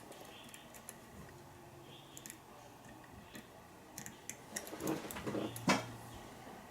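Small, sharp metallic clicks of a lock pick lifting and setting pins inside a pin-tumbler lock during single-pin picking, scattered and irregular, with a louder cluster of clicks and rattling about five seconds in.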